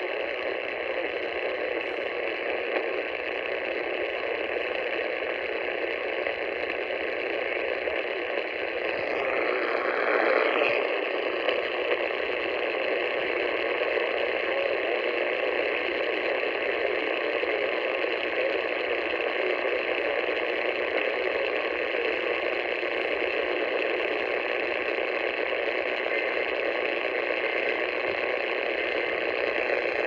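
Portable AM radio tuned to 620 kHz putting out a steady hiss of static with no programme audio, with a brief swell in the noise about ten seconds in.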